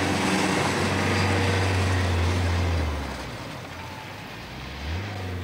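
Minibus engine running with a steady low drone as the van drives along. The drone drops away about three seconds in and comes back near the end.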